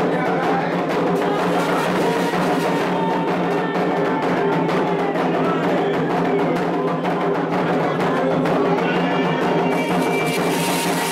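Candomblé ritual percussion: atabaque hand drums played in a steady, dense rhythm, with a sharper tapping part on top.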